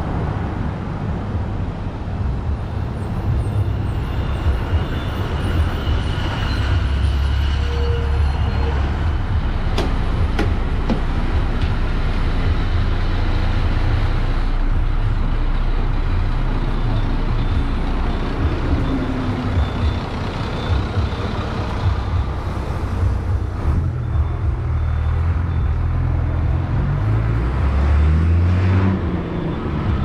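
Road traffic passing close by: engines of cars, motorbikes and a bus running, with a heavy low rumble that swells about a third of the way in and again near the end.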